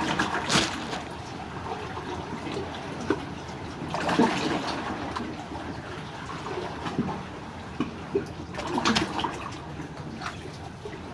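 Sea water washing and gurgling among breakwater blocks and stones, surging up three times: at the start, about four seconds in, and about nine seconds in.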